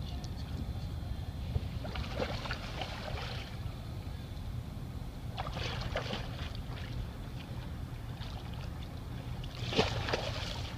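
Steady low wind rumble on the microphone, with three short bursts of water splashing around a kayak.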